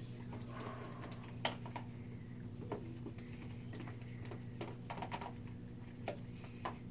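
A spoon stirring a glue and food-colouring slime mixture in a plastic tub, making irregular small clicks and taps, over a steady low hum.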